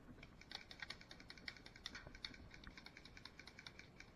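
Faint, irregular clicking: many sharp ticks, several a second, over quiet background.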